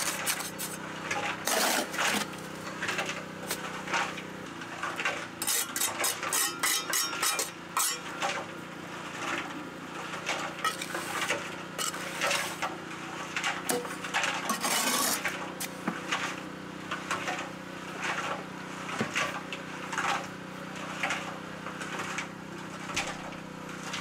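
Small steel trowel scraping and patting wet mortar around a stone, with many short scrapes and light clinks as the blade strikes the stone, over a steady low hum.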